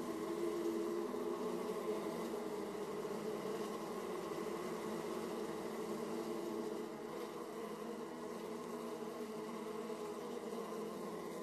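Honeybees buzzing at a hive entrance: a steady, dense drone of many bees, dropping slightly in loudness about seven seconds in.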